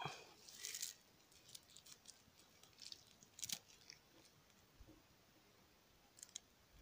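Faint rustling and crackling of paper wrapping and plastic tying strip being handled while binding a graft onto a tree stem. The sharpest crackles come just under a second in, around three and a half seconds, and again near the end.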